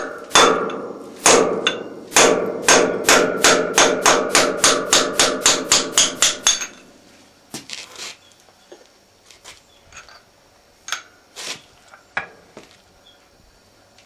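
C41 air forging hammer striking a workpiece on its lower die: two single blows, then a quick run of some fifteen blows that speeds up to about four a second, each with a metallic ring, and stops suddenly. A few light knocks and clicks follow.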